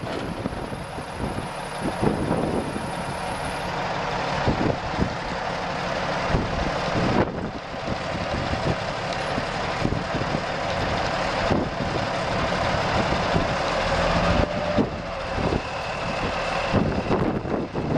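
Kenworth feed truck's diesel engine running at idle, steady throughout.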